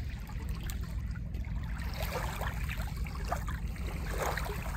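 Small lake waves lapping and splashing at the water's edge, with a few clearer splashes. Wind buffets the microphone with a heavy, fluttering low rumble throughout.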